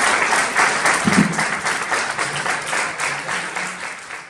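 Audience applauding, many hands clapping together and fading away toward the end.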